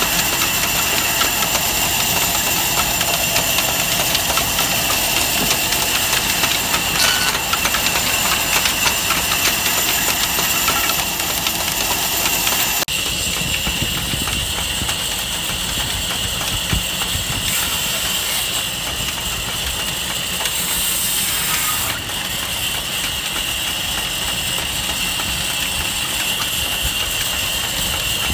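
Tractor engine running steadily, driving a band saw through a long flat belt while logs are fed through and sawn, with a steady high whine over the engine. The sound drops slightly and changes abruptly about 13 seconds in.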